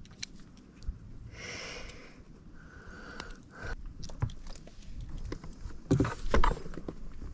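Fishing tackle being handled in a small inflatable boat: scattered clicks and light knocks, a short hiss about a second and a half in, a faint whine around the middle, and heavier bumps and clicks near the end.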